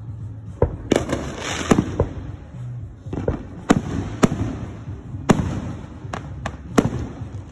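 Aerial fireworks bursting overhead: about a dozen sharp bangs at irregular intervals, some in quick pairs, with a low rumble between them.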